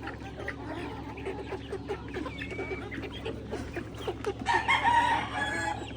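A flock of chickens clucking in many short calls, with one louder, drawn-out call about four and a half seconds in.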